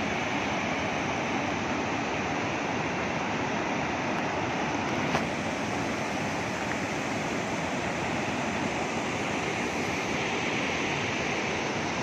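Muddy water rushing and churning over rocks in a shallow channel: a steady, even rush.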